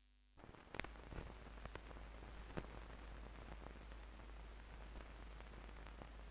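Old film soundtrack running with no programme on it: a steady faint hiss and low hum, dotted with scattered crackles and pops. It starts suddenly about a third of a second in.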